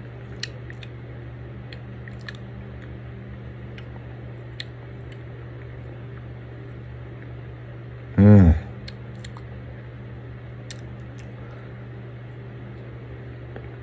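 A man tasting caviar from a small spoon: faint scattered clicks and mouth sounds over a steady low hum. About eight seconds in comes one brief voiced sound from him, falling in pitch.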